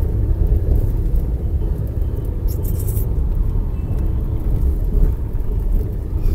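Steady low rumble of a moving vehicle's engine and road noise, heard from inside the vehicle as it drives along a city street, with a brief hiss about two and a half seconds in.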